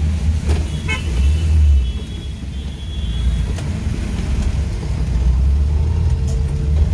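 A Maruti Suzuki Gypsy King heard from inside its cabin while driving on a wet road, a steady low engine and road drone. Horn toots from nearby traffic sound from about a second in to the middle.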